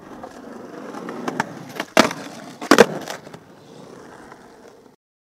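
Skateboard wheels rolling on concrete, with a loud clack of the board about two seconds in and a louder double clack under a second later. The rolling then fades away and stops near the end.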